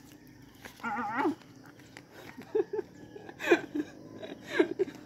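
A dog whining and yelping: one wavering whine about a second in, then a run of short yelps that drop sharply in pitch.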